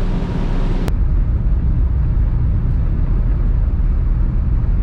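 Fast passenger ferry's engines running steadily underway, a deep rumble with a hiss of wind and water over it. A short click about a second in, after which the hiss is duller.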